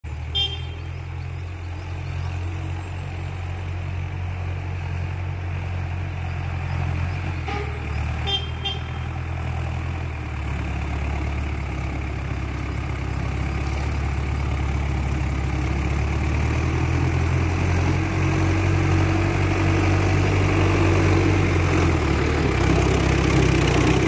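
Farm tractor's diesel engine running as it drives toward the listener, growing steadily louder as it comes close, its engine note shifting a few times. Short high beeps sound near the start and about eight seconds in.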